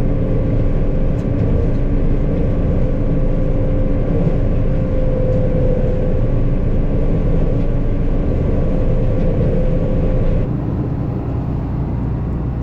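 Combine harvester running under load while shelling corn: a loud, steady low rumble with a constant mechanical hum. The sound shifts about ten seconds in.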